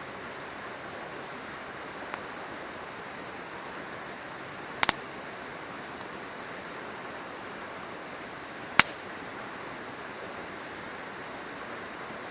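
River water rushing steadily, with a wood campfire popping: a faint crack about two seconds in, a sharp double pop near the middle, and one loud pop a few seconds later.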